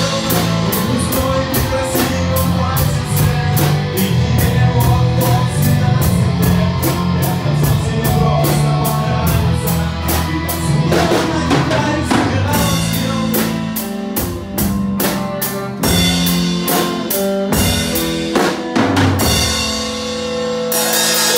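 Band music without words: a drum kit keeps a steady beat under bass and guitar chords.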